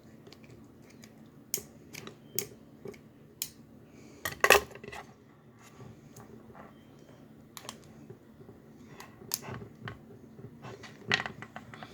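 Scattered clicks, taps and rattles of a plastic action figure and its packaging being handled and freed from the box, with one louder clatter about four and a half seconds in.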